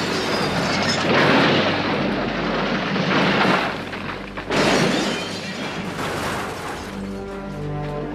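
A car tumbling down a rocky slope, with repeated crunching, crashing impacts and a second heavy crash about four and a half seconds in. Film score comes in near the end.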